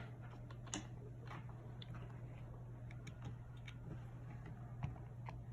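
Scattered light clicks and taps from small tools and phone parts being handled during an iPhone battery replacement, over a steady low hum.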